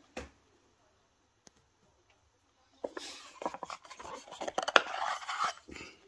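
Wooden heart-shaped gift box being handled and its lid lifted off: a click, then about three seconds of scraping, rubbing and light clicking of wood and hands, with one sharp click near the end.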